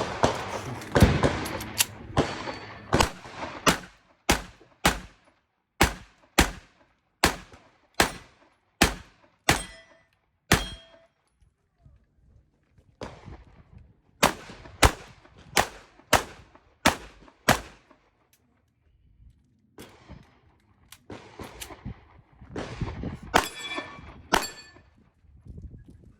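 CZ 75 Shadow pistol firing in strings. First a few shots, then a steady run of about eleven shots at roughly two a second. After a short pause comes another run of about eight, and a few more near the end.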